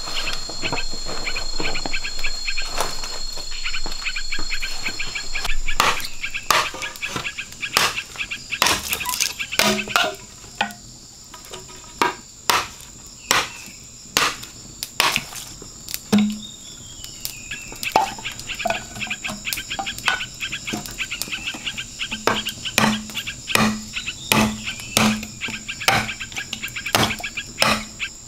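A machete chopping into a green bamboo pole, sharp strikes about one a second from about a third of the way in, with a short pause in the middle. A steady high insect drone runs underneath.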